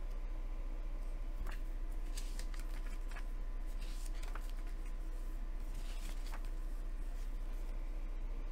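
Paper booklet being handled and its pages turned: scattered soft papery rustles and flicks, over a steady low hum.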